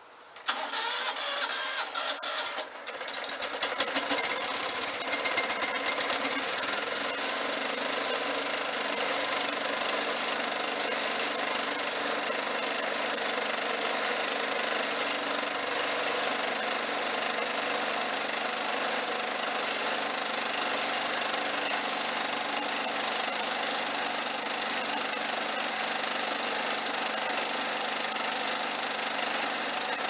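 John Deere STX30 riding mower engine cranked by its electric starter, catching about three seconds in, then running steadily.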